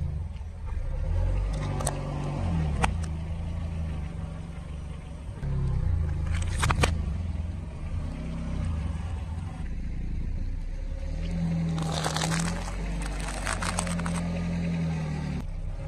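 Car engine running at low speed as a tyre rolls over small objects on asphalt. Sharp cracks and pops come at a few moments, and a dense burst of crunching crackles comes about three-quarters of the way through.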